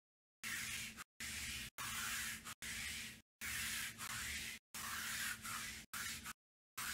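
Repeated short bursts of rustling, rubbing noise, each about half a second to a second long, with a faint low hum under each; the sound cuts out completely between bursts.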